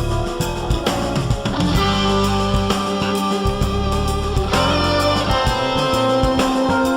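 Background music led by guitar over a steady beat.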